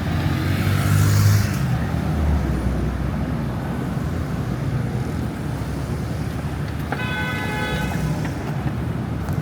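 City street traffic, with engines and tyres running steadily. A vehicle passes close by in the first two seconds, and a car horn sounds once for about a second about seven seconds in.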